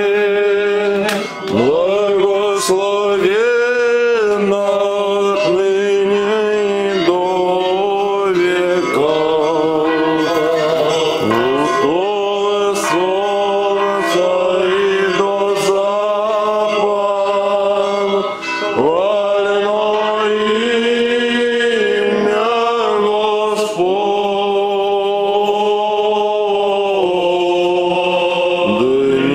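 Old Believer church chant sung by a choir, the melody moving slowly and continuously, with short breaks for breath about a second in and again about two-thirds of the way through.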